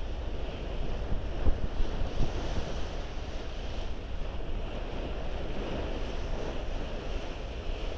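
Sea water rushing and splashing steadily as a moving ship's bow cuts through it, with wind buffeting the microphone.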